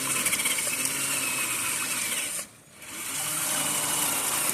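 Electric motor and transmission of a Traxxas TRX4 RC crawler whining under throttle while it is high-centered on rocks. The whine stops briefly about halfway through, then starts again.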